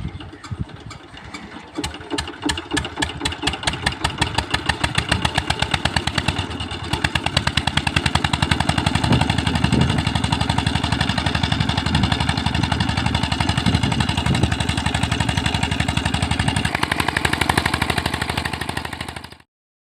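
An engine running with a rapid, even chugging beat. It builds up over the first few seconds, then runs steady, and stops abruptly near the end.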